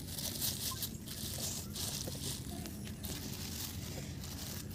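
Thin plastic bags rustling and crinkling as they are cut open with a knife.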